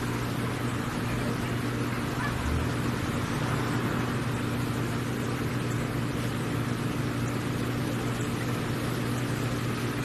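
Steady background hum with an even hiss, unchanging throughout, with no distinct calls or knocks standing out.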